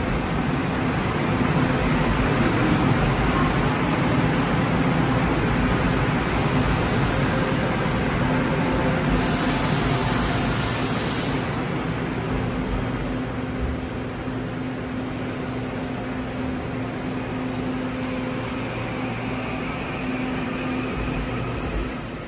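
Seoul Line 4 subway train running past the platform behind the screen doors: steady running noise of wheels on rail with a low hum. There is a short hiss of air about nine seconds in, and the noise eases off in the second half.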